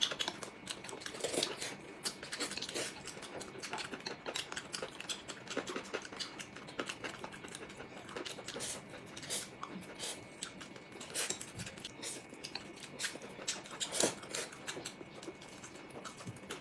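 Close-up eating sounds: chewing, slurping noodles and chopsticks clicking against porcelain bowls, heard as an irregular run of short clicks and smacks.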